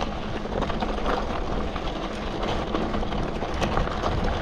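Wind and ride noise on a mountain biker's camera microphone: a steady low rumble with scattered light clicks and rattles.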